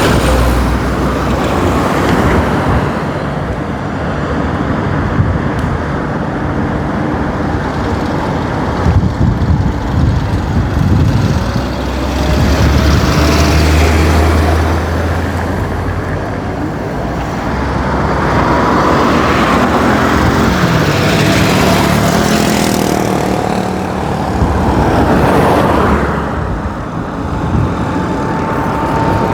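Roadside traffic: cars and trucks passing close by one after another, the engine and tyre noise swelling and fading as each goes past. A deep rumble builds for a few seconds near the middle, and faint engine whines slowly rise and fall in pitch.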